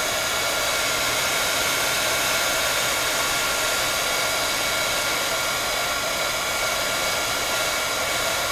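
Electric heat gun running steadily, blowing hot air onto heat-shrink tubing to shrink it: an even rush of air with a faint steady whine from its fan motor.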